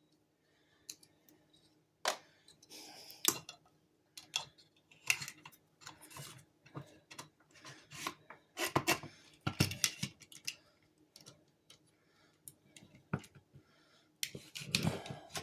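Irregular metal clicks, scrapes and rattles of a Hart heavy duty staple gun being handled while a strip of staples is fitted into its magazine.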